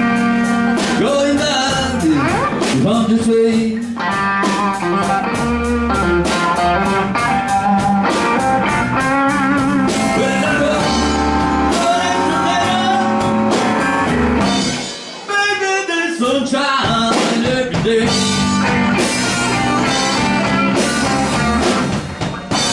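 A live blues band: a Fender Stratocaster electric guitar plays lead lines with bent and wavering notes over a Music Man StingRay bass and a drum kit, in a slow Texas blues. The band drops back briefly about two-thirds of the way through, then comes back in.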